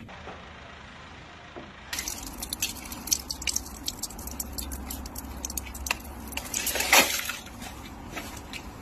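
Ice crackling and snapping in many small irregular clicks as a hand works a sheath of ice on a drainpipe, with one louder crack about seven seconds in. Before that, for the first two seconds, there is only a faint outdoor hiss.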